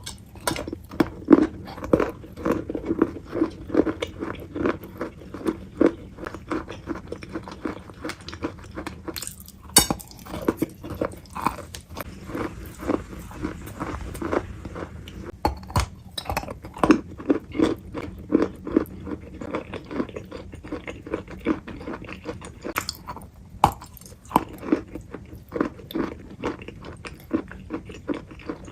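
Close-miked chewing and crunching of food, a dense run of rapid crunchy crackles several times a second.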